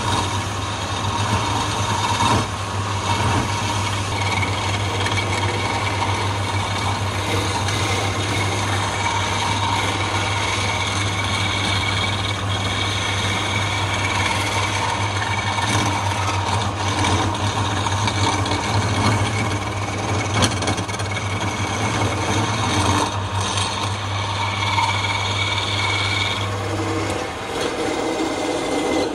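Wood lathe running with a steady motor hum while a flat scraper is held against the spinning wooden spindle, scraping the wood. The hum stops about two seconds before the end.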